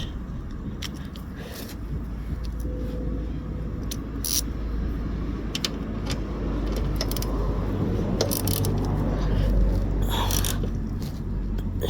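Metal parts and hand tools scraping and clicking irregularly while a motorcycle sidestand's parts are fitted back together, with a few sharper knocks and a low rumble underneath.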